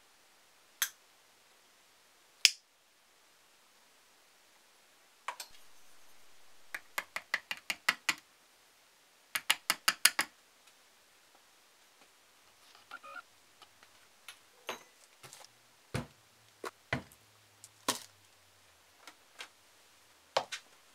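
A metal spatula tapping and prodding at resin-coated coffee beans in a mould, making sharp clicks that come in runs, the fastest a burst of about six quick taps. After that come softer, scattered knocks of things being handled on a tabletop.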